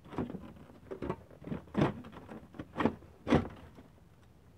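Plastic headlamp assembly of a 2008 Chevrolet Aveo knocking and scraping against the bumper and fender as it is slid forward and pulled out of its mounting, a series of short knocks, loudest about two and three seconds in.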